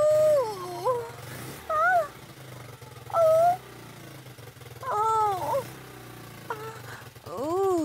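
Repeated whining cries, each arching up then down in pitch, about every second or two, over the steady low idle of a Yamaha Crux motorcycle engine.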